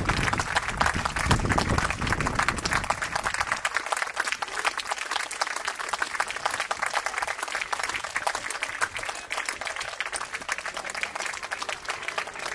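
Audience applauding, many hands clapping together. A low rumble sits under the clapping for the first three or four seconds, after which the applause carries on a little lighter.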